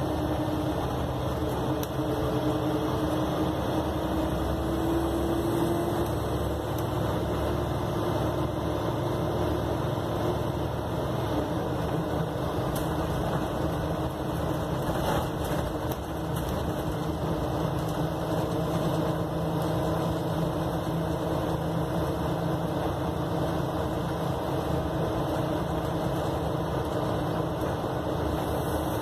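Single-deck bus's diesel engine running with road noise, heard from inside the passenger saloon as the bus drives along, with the engine note rising briefly about five seconds in.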